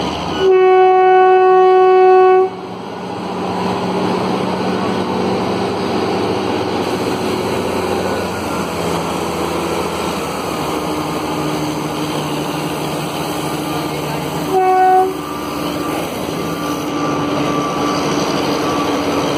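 Diesel locomotive sounding its horn in one loud, single-note blast of about two seconds, then running past with its engine going steadily; a short second toot of the horn comes near the end.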